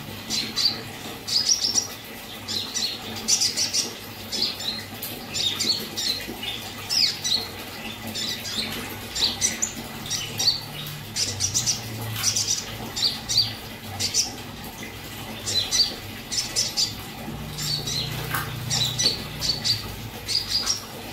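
A konin singing actively: short clusters of sharp, high chirps repeated every second or so without a break. This is a lure (pancingan) song used to get young konin to start singing.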